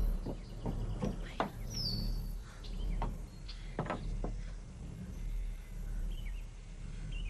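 Outdoor ambience: short bird chirps now and then over a steady low hum, with a few brief light knocks.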